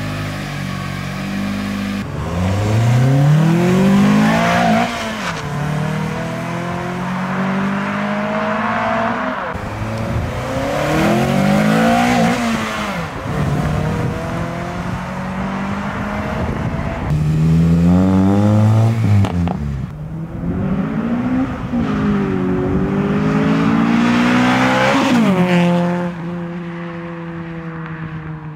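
2008 Acura TSX's four-cylinder engine, mostly on its stock exhaust, revving and pulling hard several times, its note climbing and dropping with each rev. In the last couple of seconds it settles to a steadier, quieter note.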